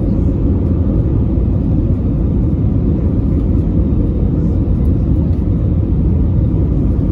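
Steady cabin noise of an Airbus A320-200 on approach to landing, heard inside the cabin over the wing: an even, deep rumble of engine and airflow.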